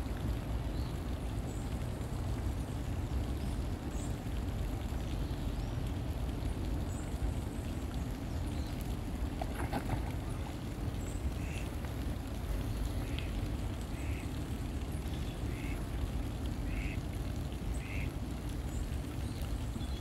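Muscovy ducks giving a series of short quacks, about one every second or so, through the second half, over a steady low rumble of background noise.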